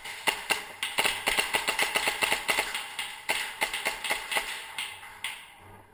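Airsoft Hi-Capa gas blowback pistols firing a rapid string of sharp, cracking shots, about five a second. The shooting stops about four and a half seconds in.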